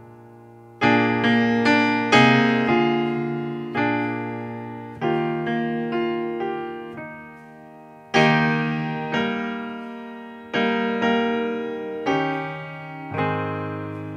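Background piano music: slow chords and single notes struck and left to ring away.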